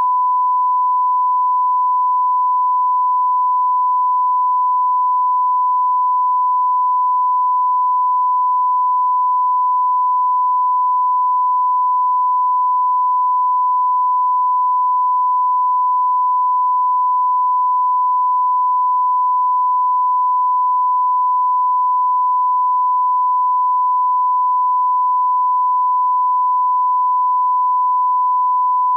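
Steady thousand-hertz reference test tone, the line-up tone that runs with colour bars: one pure, unbroken beep at constant level.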